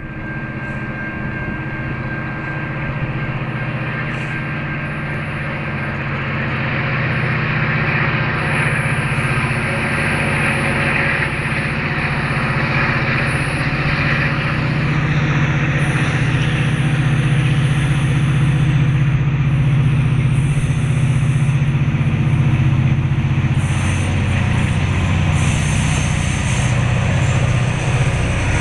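Approaching diesel freight train: the locomotive engine's steady low drone grows louder as it nears. A high-pitched sound comes and goes from about eight seconds in.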